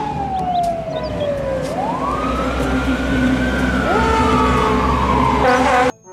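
Fire engine siren wailing in slow falling and rising sweeps, with a second siren tone joining about four seconds in, over the low rumble of the trucks and road noise. It cuts off suddenly near the end.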